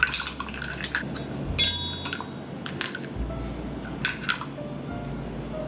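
Metal measuring spoons on a ring clinking against each other and a spice jar while cinnamon is scooped out: a handful of light clinks, with one brighter, briefly ringing clink a little under two seconds in.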